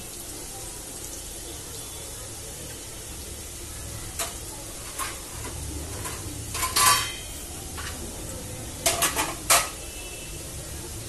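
Potato fries sizzling steadily in hot oil in a steel kadhai, with a steel spoon clinking against the pan: single clinks now and then, the loudest a little past the middle, and a quick run of clinks near the end.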